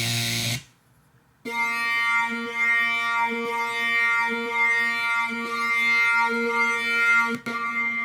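Synthesized instrument sound from a VST software plugin. A dense buzzy tone cuts off under a second in, and after a short gap a steady pitched drone with many overtones starts, swelling about once a second, with a brief break near the end.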